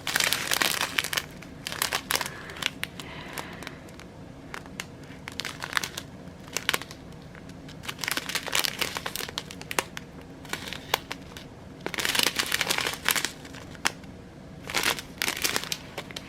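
Small plastic bags of diamond painting drills handled and crinkled, in irregular bursts of crackling with quieter gaps between.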